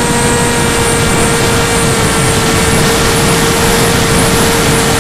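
Micro FPV quadcopter's motors and propellers whining at a steady pitch over a loud rushing noise, as heard from the camera on board in flight.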